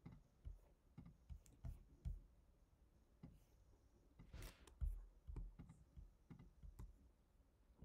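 Faint, irregular clicks of a computer mouse and keyboard, a dozen or so scattered short clicks with a few soft thumps.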